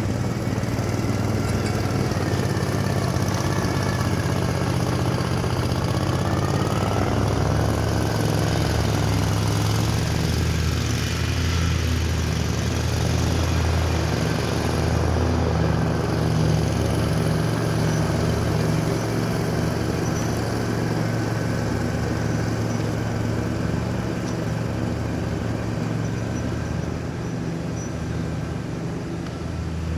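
Lawn mower engine running steadily, a constant low hum that eases off slightly near the end.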